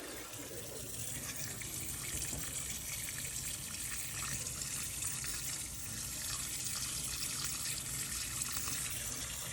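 Water escaping steadily under pressure from a pinhole leak in an underground copper water line: a continuous hiss of running water.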